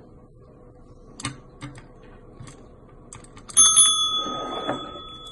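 Chrome desk service bell struck by a cat's paw about three and a half seconds in: a bright ding that keeps ringing and slowly fades, after a few faint taps.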